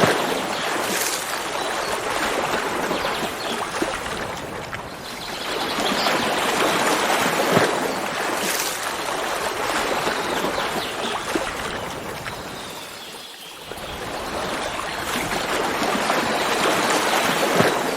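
Running stream water, a steady rushing and trickling that fades down briefly twice, about five and thirteen seconds in, before swelling back.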